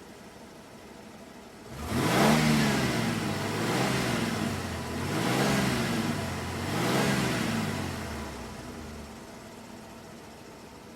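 Car engine idling, then revved four times in quick succession, each rev rising and falling in pitch, the first the loudest, before it drops back to idle.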